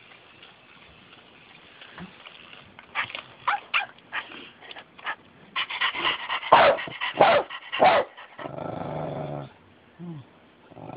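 Small dog barking: a quick run of short, sharp barks starting about three seconds in, then a low growl held for about a second, and a short falling whine just after.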